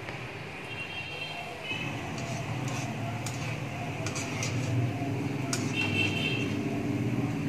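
Lentil-batter pakoris deep-frying in hot oil in a kadhai, a steady sizzle that grows louder about two seconds in, with light clicks of a wire skimmer against the pan.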